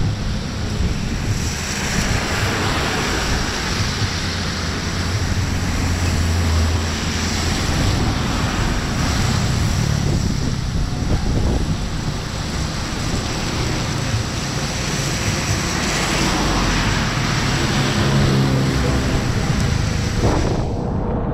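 Steady rushing wind noise buffeting the microphone, over traffic on a wet road; a truck's engine comes up near the end.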